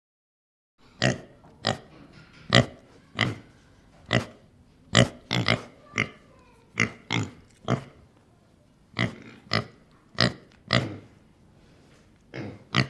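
A farm animal giving a string of short, sharp grunting calls, about twenty of them at irregular intervals of roughly half a second, starting about a second in.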